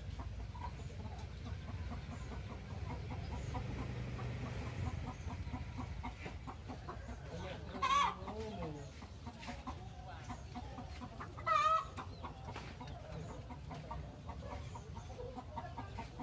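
Chickens clucking, with two short loud calls about eight and twelve seconds in, over a low steady rumble.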